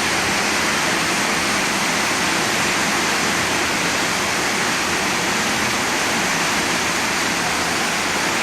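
Steady rushing of water during a tropical-storm flood, an even noise without a break.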